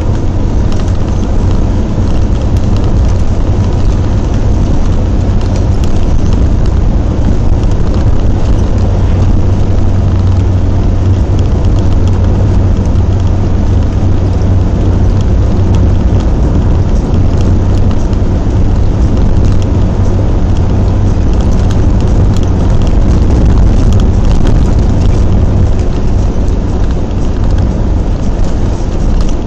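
Engine running steadily under way, heard from inside the cab of a moving vehicle: a loud, constant low drone with a hiss of road noise over it.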